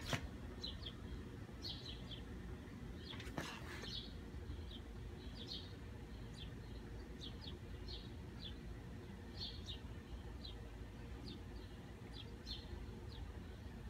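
Small birds chirping in short, irregular chirps over low background noise, with a faint click at the start and a brief scrape about three and a half seconds in.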